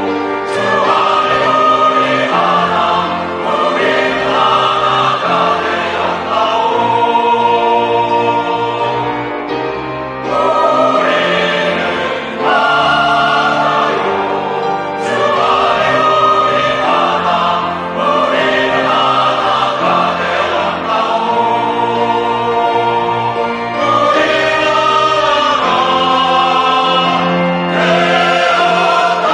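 Mixed church choir singing a Korean sacred anthem in sustained chords, with organ accompaniment, moving into a closing "Amen, amen, amen" near the end.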